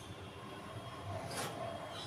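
Low steady background noise, with a faint soft clatter about one and a half seconds in as a plastic spice box is picked up.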